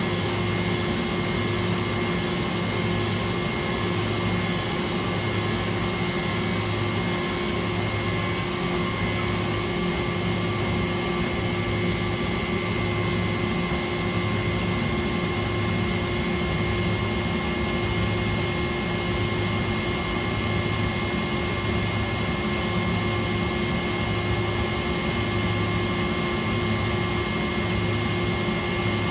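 1999 Makino V33 vertical machining center running under power: a steady machine drone with several constant whines. Underneath, a low hum pulses on and off about once a second.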